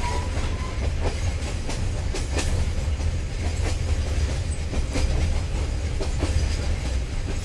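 Tazara passenger train running on the rails: a steady low rumble with irregular knocks from the wheels.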